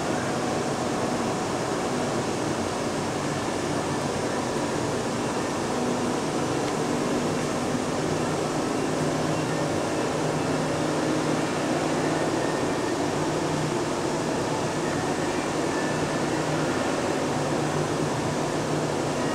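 Steady room noise: an even hiss with a faint low hum and no distinct events.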